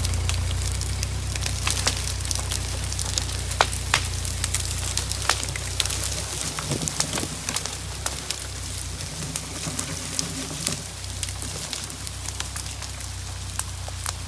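Ford 8N tractor's four-cylinder engine running steadily while it drags a tamarack log through dry brush between two stumps. Over the engine come many sharp crackles and snaps of limbs and brush breaking.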